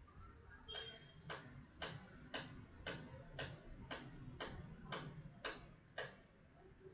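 Faint, even ticking, a little under two ticks a second, which stops about a second before the end.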